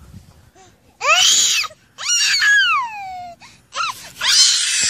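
A toddler squealing in three loud, very high-pitched shrieks: one about a second in that rises and falls, a longer one about two seconds in that slides down in pitch, and a harsher, raspier one starting near the end.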